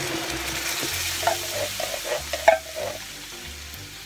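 Canned coconut milk poured into a hot frying pan of fried onions, sizzling loudly as it hits the hot oil, then settling down near the end. A few knocks about halfway, the sharpest one the loudest.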